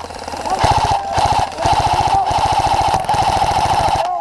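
Electric airsoft rifle firing long full-auto bursts: a fast run of clicks over the whine of its gearbox motor, with two short breaks and a stop near the end.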